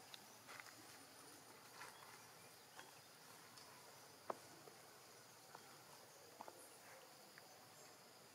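Faint, steady high-pitched insect hum from the forest, with scattered soft clicks and one sharper click about four seconds in.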